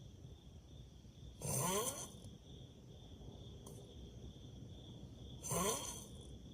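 A person snoring: two short snores about four seconds apart, each rising in pitch.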